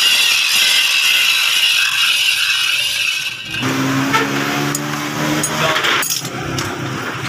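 Angle grinder grinding a scrap steel plate, a loud, steady, gritty hiss for about the first three and a half seconds. Then the grinding noise stops, leaving a lower steady hum with scattered clicks.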